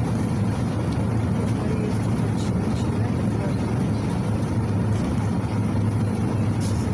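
Interior noise of a PAZ 4234-04 bus driving along: its YaMZ-53423 four-cylinder turbodiesel runs with a steady low drone, mixed with road noise. A few faint light ticks or rattles sit over it.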